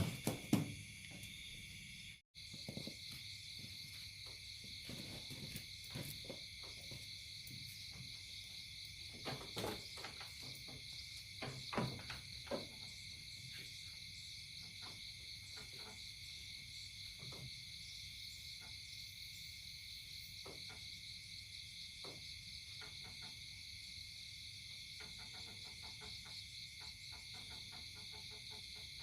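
A steady, high-pitched chorus of insects trilling, with scattered short clicks and knocks, the loudest near the start and around ten and twelve seconds in.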